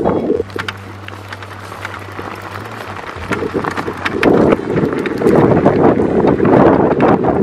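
Wind buffeting the microphone while riding a bike down a gravel road, with scattered ticks of tyres crunching on the gravel. A steady low hum sits under it from about half a second to three seconds in, while the wind eases.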